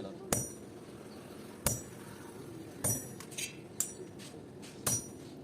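Hand hammer striking steel on an anvil, forging an old file into a knife blade: separate blows roughly once a second, each with a short metallic ring, with a few lighter taps between them.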